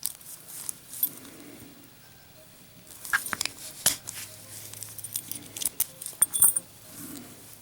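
Small metallic clicks and taps of a laminated steel padlock and its brass keys being handled, scattered through the middle of the stretch.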